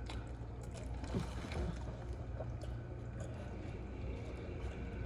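Someone eating creamy Buldak noodles: soft wet, squishy chewing sounds with small clicks, over a low steady hum.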